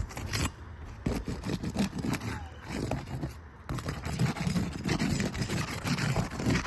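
Asphalt roof shingles being pried up with a hand tool, with repeated scraping and clicking as the tabs are worked loose. This is a repairability test that looks for creasing and granule loss in the shingles.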